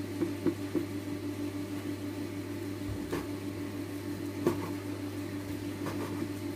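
Kitchen knife chopping pork on a wooden cutting board: a few irregular sharp taps of the blade on the board, over a steady low hum.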